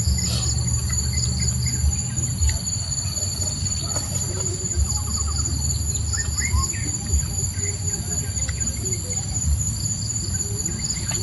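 Chorus of insects shrilling steadily in several high-pitched bands, with a few short bird chirps about six to seven seconds in and a low rumble underneath.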